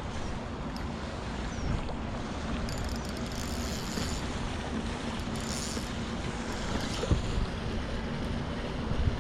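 Steady wind buffeting the microphone over water lapping, out on the water from a kayak.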